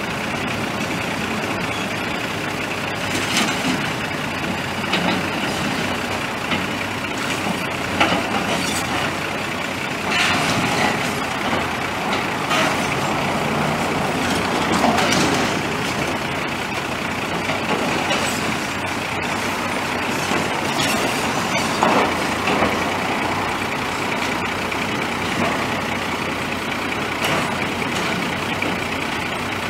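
Komatsu hydraulic excavator's diesel engine running steadily as it demolishes a wood-framed building, with repeated sharp cracks and crashes of breaking timber and falling debris every few seconds.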